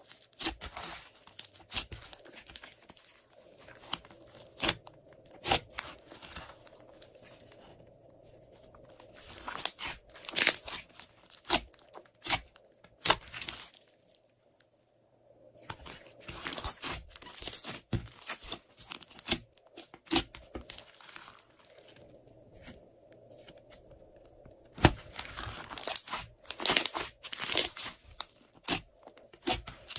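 Hands squishing, stretching and folding glossy slime: a stream of sticky clicks and crackling pops that comes in flurries, easing off briefly about halfway through and again about two-thirds of the way in.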